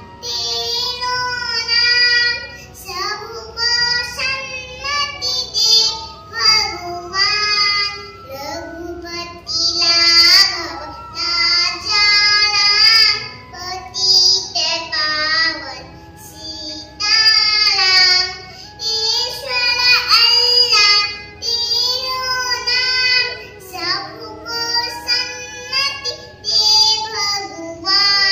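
A child singing a Hindu devotional prayer solo in long, gliding melodic phrases, over a steady musical accompaniment.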